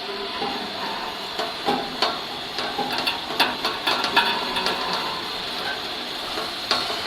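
Irregular metal clanks and knocks from a bubble washing machine's conveyor belt frame being lowered, clustered in the middle, over a steady hiss.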